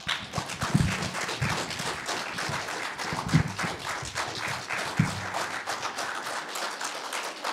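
Audience applauding: a steady patter of many hands clapping that starts at once and carries on evenly.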